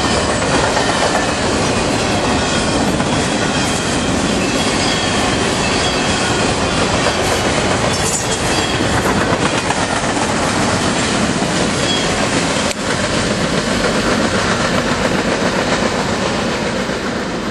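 Freight cars of a CSX trash train rolling past close by: a steady rumble and clatter of wheels over the rail joints, with brief light wheel squeal now and then. It eases off a little near the end as the last cars go by.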